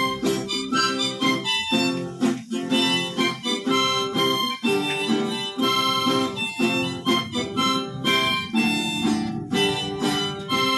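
Harmonica in a neck rack and a strummed acoustic guitar played together by one musician. Held harmonica chords ride over steady, even guitar strumming.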